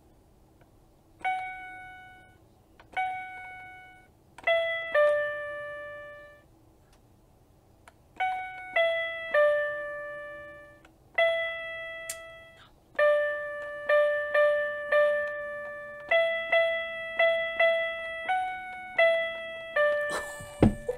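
Children's toy keyboard played one key at a time, picking out a simple tune in clear electronic tones that each start sharply and fade. The notes come slowly with pauses at first and in quicker runs from about two-thirds of the way in, with a short rustle at the very end.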